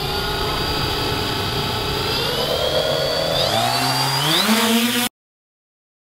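Quadcopter drone's electric motors and propellers whining steadily. About three seconds in, the pitch rises in steps as the motors rev up. The sound cuts off suddenly about five seconds in.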